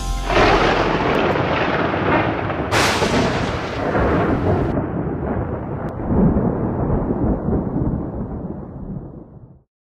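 A long, loud rumble of noise. A brighter, hissier surge comes about three seconds in, then the rumble fades and stops shortly before the end.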